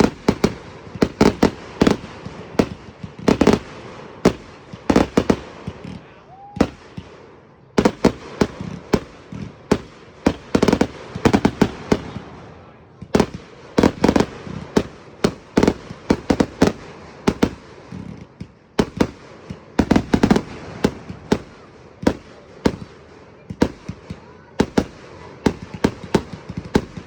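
Fireworks and firecrackers going off: irregular runs of sharp bangs and pops with echoes, thinning out briefly in short lulls.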